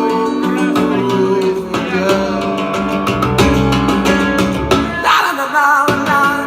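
Music: an instrumental passage of a song, led by guitar with bass underneath.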